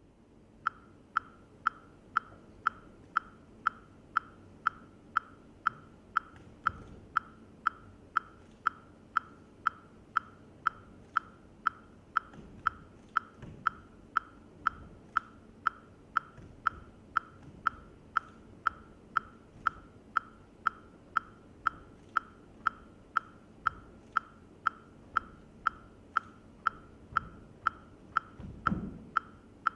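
A steady metronome-like click, evenly spaced at about two a second, keeping the beat for a dance. Underneath are soft thuds of bare feet on the stage, the heaviest near the end.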